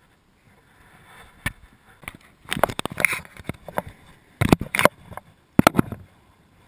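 A run of close knocks and short scrapes, handling noise as fishing tackle and the body-worn camera are moved about. It comes in uneven groups: one knock, then a cluster, then two pairs of sharp knocks.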